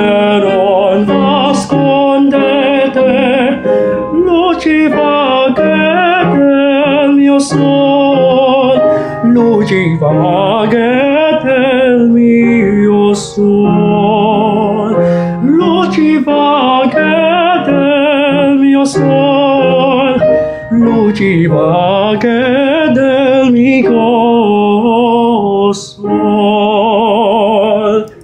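A man singing in a full classical operatic voice with wide vibrato and sweeping glides between held notes, over piano accompaniment, pausing briefly between phrases.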